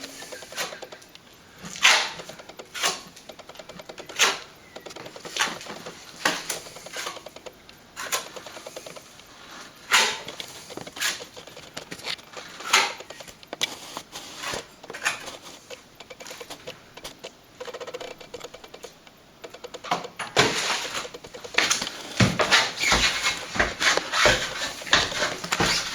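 Short, irregular scraping strokes about once a second, like a plastering tool working cornice cement; the strokes come faster and louder about twenty seconds in.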